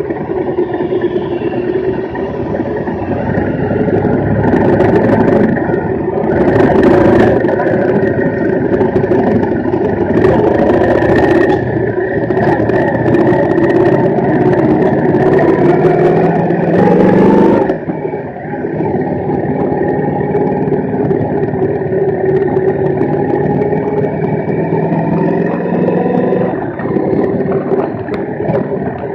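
Big motorcycle engine running under load on a dirt road, its pitch climbing as it accelerates and dropping suddenly at a gear change about eighteen seconds in. Several short rushes of noise come between about five and twelve seconds in.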